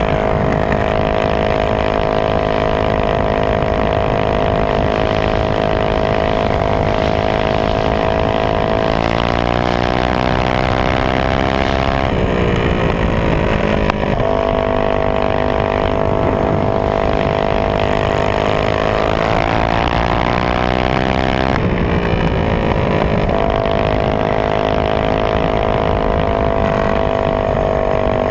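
Minibike's Honda GX160 single-cylinder four-stroke engine running hard at high, steady revs at speed. Twice, around ten and twenty seconds in, the engine note swings and shifts before settling back to its steady pitch.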